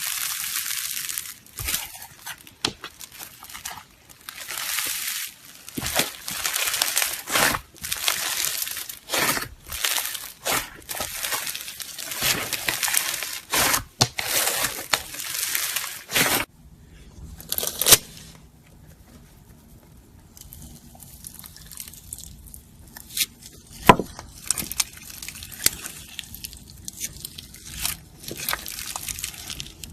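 Slime being squeezed, stretched and poked by hand: repeated crackly, crinkly squishing, then quieter squishes with a few sharp pops about midway on.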